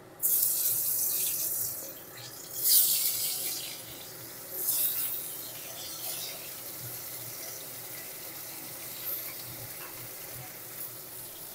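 Boiled jackfruit pieces going into hot mustard oil in a kadai. A loud sizzle starts at once, flares up twice more in the first five seconds, then settles to a steady frying hiss.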